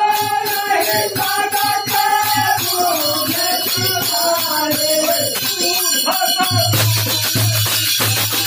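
Village bhajan kirtan: men singing a devotional song to harmonium, with jingling hand percussion keeping a steady beat. Near the end the melody drops out and a low pulsing beat carries on.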